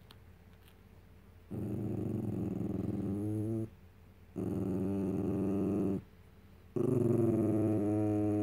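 Small white long-haired dog giving three long, low grumbling growls, the last the longest, its pitch wavering at the end of each: a grumpy protest from a dog wanting a cookie.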